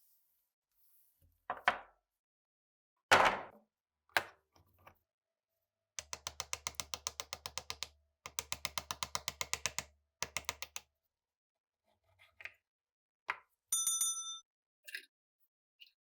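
Hand work on an old rusty pistol: metal parts knocking against the bench, then two long runs of rapid even clicking, about nine a second, over a low hum, and near the end a short metallic ring.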